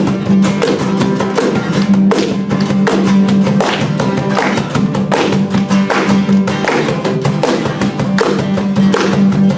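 Live band music with no singing: guitar over a steady beat and a held bass note.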